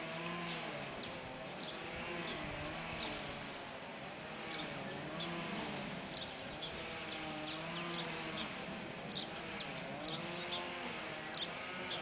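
Flying insect buzzing close to the microphone, a pitched hum that keeps rising and falling in pitch, with short high chirps scattered throughout.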